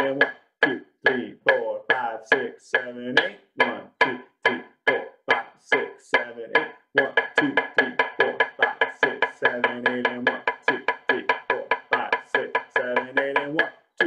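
Drumsticks striking a hard practice surface in a steady stroke-after-stroke pattern, the strokes coming closer together from about seven seconds in.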